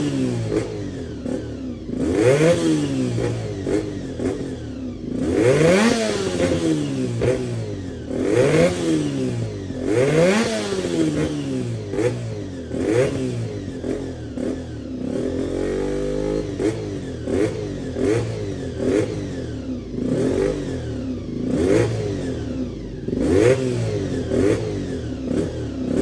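Honda VFR400R NC30's V4 engine breathing through a racing muffler and silencer, revved again and again in quick throttle blips, the pitch rising sharply and dropping back each time. It settles briefly to a steady idle about halfway through, then the blips resume, shorter and lighter.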